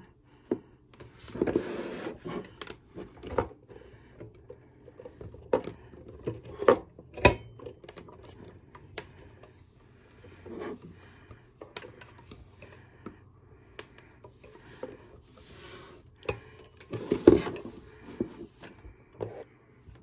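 Cotton pad rubbing and wiping along a rotary phone's cord and handset, with scattered light clicks and knocks as the phone's parts are handled. There are two louder knocks, about seven and seventeen seconds in.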